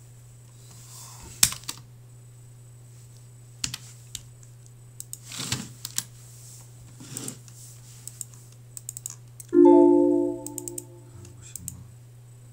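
Computer keyboard keystrokes and mouse clicks, scattered and irregular. About nine and a half seconds in, the Windows error chime sounds once as an error dialog pops up, the loudest thing here, fading away over about a second.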